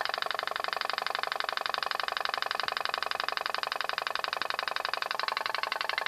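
Home-made pop pop boat running: its flame-heated boiler and diaphragm give a rapid, steady train of sharp pops, many a second, through extended brass discharge tubes.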